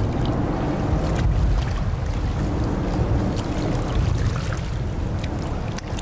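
A motorboat running over water: a steady low rumble with splashing, starting abruptly.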